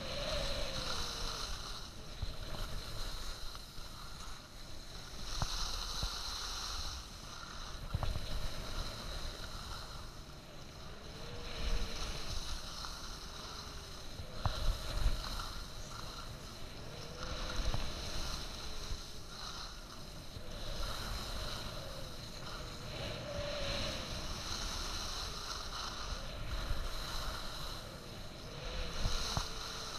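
Skis carving turns on packed snow: a scraping hiss that swells and fades with each turn every few seconds, over wind rumble, with a few sharp knocks.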